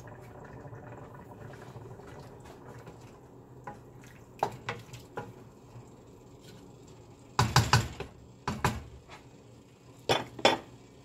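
Wooden spoon stirring cow trotters in a stainless-steel pot of liquid, knocking against the metal pot: scattered light clicks, then a quick run of louder knocks about halfway through and a few more near the end, over a faint steady background noise.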